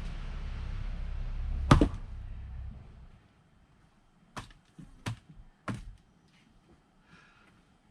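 Axe striking a firewood log: one sharp, ringing crack about two seconds in, heard over a steady rushing noise that fades out a second later. Three lighter wooden knocks follow over the next couple of seconds.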